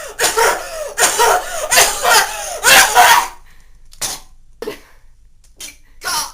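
A person coughing: a run of loud coughs for about three seconds, then a few shorter, quieter coughs spaced out. It is a put-on imitation of the lingering cough of whooping cough's recovery stage.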